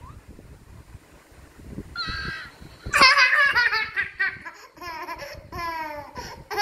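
Young child laughing hard: a short high squeal, then from about three seconds in a loud, high-pitched belly laugh in rapid repeated bursts.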